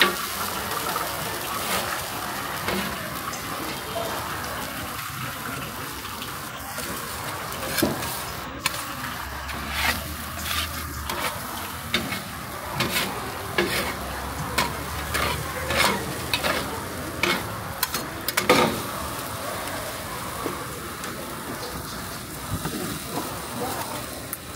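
Corn kernels and cheese sizzling on a flat-top griddle while two metal spatulas scrape and clack against the metal plate, chopping and heaping the pile. The sharp clacks come thick and fast from about a third of the way in until near the three-quarter mark, then ease off to the steady sizzle.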